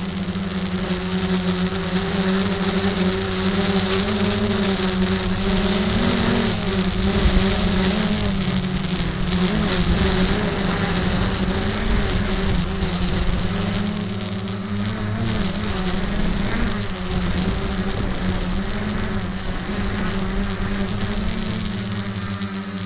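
Quadcopter's four electric motors and propellers buzzing in flight, heard from a camera on the craft itself. The hum's pitch wavers slightly throughout, with a thin steady high whine over it.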